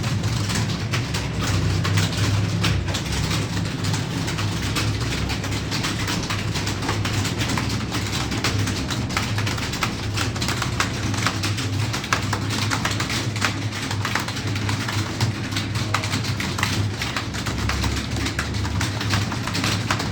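Computer keyboards being typed on fast: a dense, irregular clatter of key clicks, over a steady low hum.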